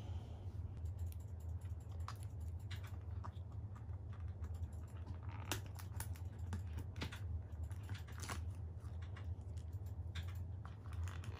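Scattered light clicks and taps of small plastic toy pieces being handled, over a steady low hum.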